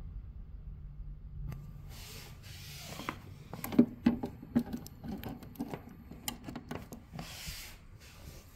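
Hand handling noise at an EcoFlow River 2 power station: rubbing and rustling, with a quick run of clicks and knocks about three to five seconds in, the loudest about four seconds in, as the mains cable is worked back into its socket.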